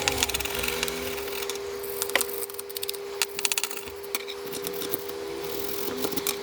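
Toothbrush scrubbing the plastic casing of a TV remote control: a scratchy brushing with quick flurries of small clicks and scrapes.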